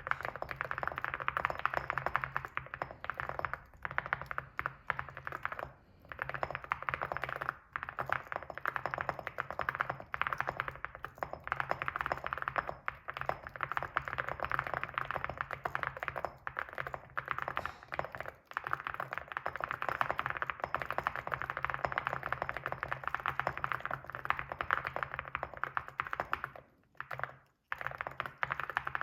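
Continuous fast typing on an EVO75 mechanical keyboard with ceramic keycaps, a dense run of keystrokes with a short pause about 27 seconds in.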